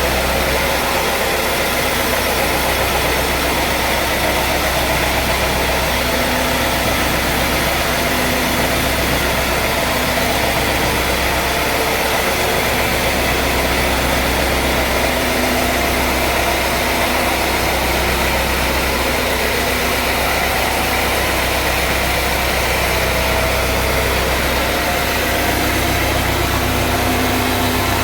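Sawmill machinery running steadily: an engine-driven mill's motor keeps up an even low hum under a constant mechanical noise, with no change in load.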